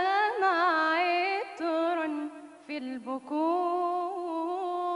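A woman's solo voice singing an Islamic nasheed without accompaniment, in an ornamented Arabic style with quick turns of pitch. There is a short break for breath about halfway through, then one long held note with a slight vibrato.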